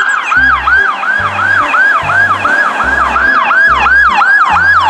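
Police car's electronic siren sounding a fast yelp, about three rising-and-falling sweeps a second. Under it runs background music with a pulsing bass beat.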